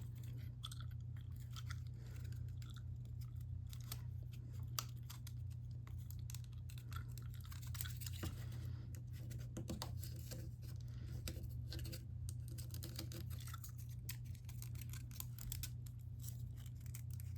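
Irregular small clicks, taps and rustles of model rocket kit parts being handled and fitted together by hand, over a steady low hum.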